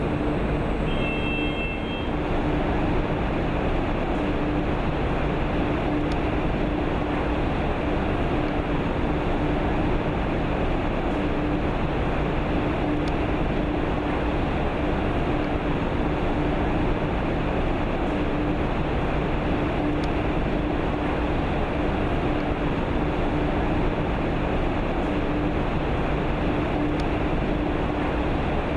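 Corrugated-board processing machinery running steadily: a constant mechanical noise with a steady hum, and a few brief high tones about a second in.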